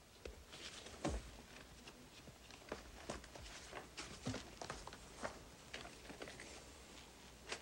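Faint, scattered short clicks and rustles, like small handling movements, over the quiet tone of a small room.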